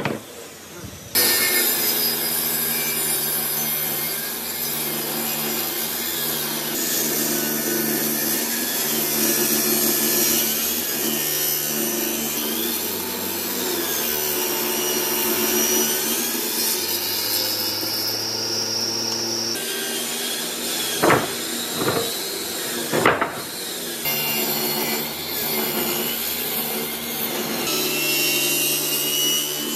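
Table saw running and ripping wooden strips along its fence, the blade cutting steadily through the wood over a steady motor hum. It starts about a second in, and two sharp knocks come about two-thirds of the way through.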